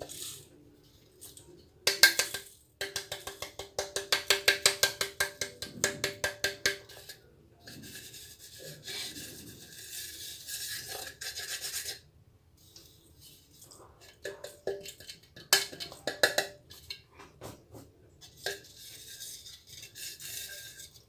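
Crushed Oreo powder being scraped and knocked out of a blender jar into a bowl. A loud knock comes about two seconds in, then a quick run of ringing scraping strokes, several a second, for a few seconds. Softer scraping follows, with a few more knocks later.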